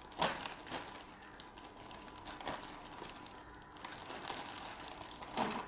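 Plastic packaging and fabric of a garment rustling as it is handled, with a sharp crinkle just after the start and then softer, intermittent rustling.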